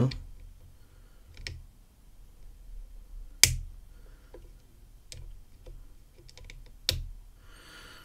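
Disc detainer pick turning the discs of a Mammoth Security motorbike disc detainer padlock, giving a scattering of sharp clicks, the loudest about three and a half seconds in and another near seven seconds. The clicks are the discs' feedback as they fall into their true gates, a sign the lock is close to opening.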